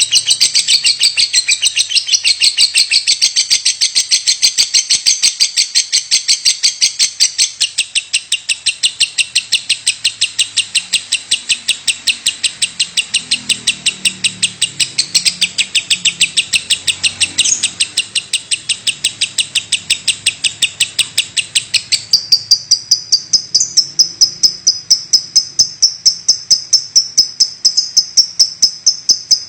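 Lovebird giving its rapid 'batuk' ('cough') call: an unbroken string of sharp, high-pitched chirps, about four a second. About two-thirds of the way through, the chirps turn thinner and higher and get louder.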